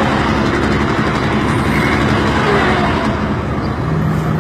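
Engine of an FNM vehicle running steadily at road speed, a low drone mixed with wind and road noise. A second, lower hum comes in near the end.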